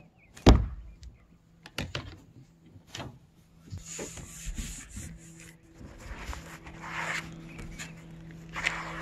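A sharp knock about half a second in, then a few clicks and the scraping of a plastic spreader working Bondo body filler on a cardboard mixing board and across a car's roof panel. A faint steady hum comes in about halfway through.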